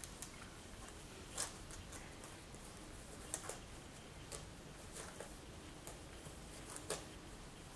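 Faint scattered rustles and soft clicks, about half a dozen short ones, from Schipperke puppies shifting on the blanket in a whelping box.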